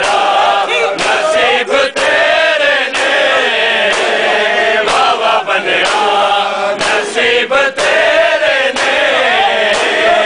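A large group of men chanting a mourning nauha in unison, with sharp slaps of hands striking bare chests in matam.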